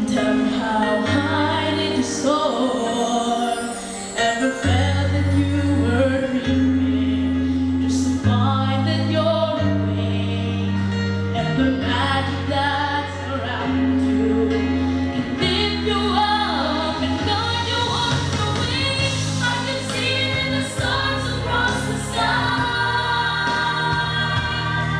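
A young boy singing a slow gospel-pop ballad into a handheld microphone, amplified, over a sustained instrumental accompaniment of held chords.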